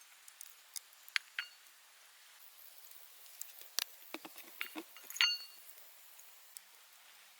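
Scattered light taps and clicks of small hard objects, with two clinks about a second and a half and five seconds in that ring briefly, and a short run of duller knocks just before the second one.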